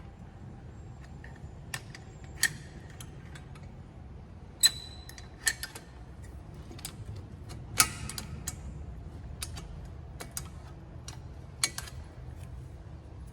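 Scattered metallic clicks and clinks of hand tools and parts being handled during a small-engine teardown, about a dozen irregular taps with the sharpest around four and a half and eight seconds in, one ringing briefly. A steady low hum runs underneath.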